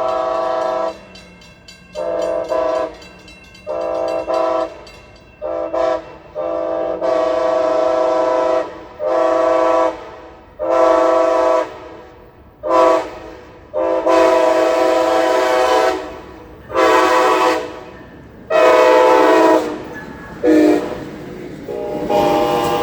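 Amtrak passenger locomotive's air horn playing a long run of short and long blasts in quick succession, about fifteen in all, each one a chord of several notes sounding together. The longest blasts last about two seconds.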